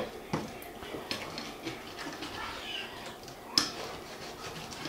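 Slotted plastic spatula stirring and scraping chicken pieces through sticky sauce in a metal skillet, with a few sharp knocks of the spatula against the pan, the loudest about three and a half seconds in.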